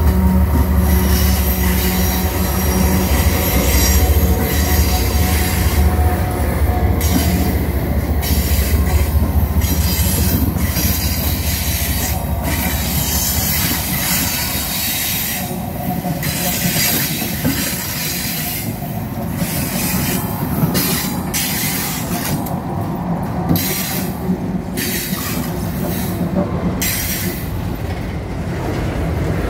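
Freight train passing close by: two diesel-electric locomotives go by first, their engines droning strongly for the first ten seconds or so. Covered hopper cars then roll past, with steel wheel and rail noise and bursts of high-pitched wheel noise that come and go.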